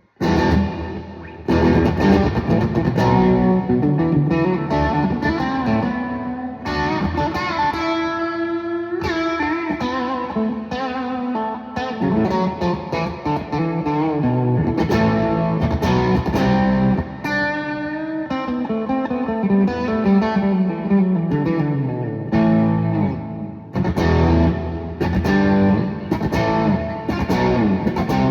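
Guitar music, notes plucked and strummed, likely an electric guitar through effects.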